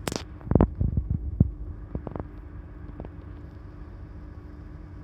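A sharp click, then a quick run of dull thumps and knocks over the next second and a half, and a few fainter knocks after, all over a steady low hum.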